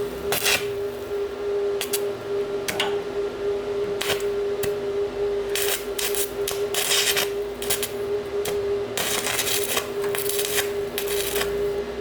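Irregular metallic clicks, clinks and scrapes of hand tools handling metal parts, over a steady hum.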